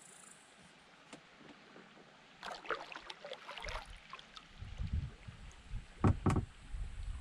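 Kayak paddling: splashing and dripping water from paddle strokes about two and a half seconds in, then a low rumble and two sharp knocks a little after six seconds.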